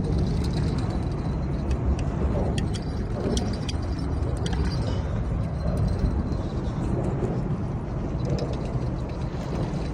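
Wind buffeting the microphone: a steady, gusting low rumble. Faint scattered clicks can be heard through the middle.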